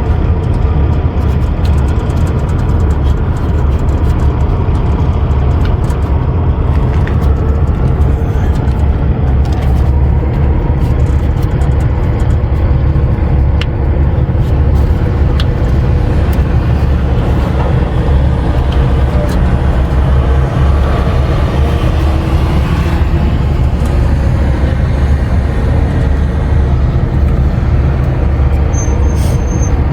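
Steady low rumble of an idling diesel engine, with a few faint clicks scattered through it.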